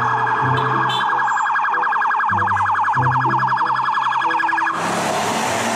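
Police siren sounding a rapid warbling yelp, its pitch swinging quickly up and down over and over, with a burst of noisy hiss near the end.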